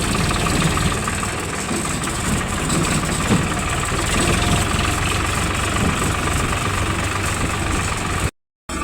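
Excavator's diesel engine running steadily at idle, a continuous mechanical rumble; the audio drops out completely for a split second near the end.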